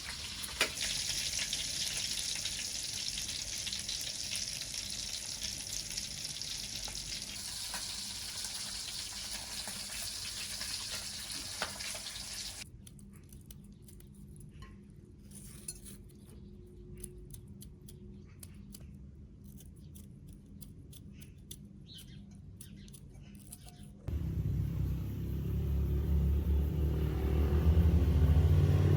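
Food sizzling in a frying pan, a steady hiss, for the first half; it cuts off abruptly to a quieter stretch of scattered light clicks and clinks, and about five seconds before the end a loud low rumble comes in.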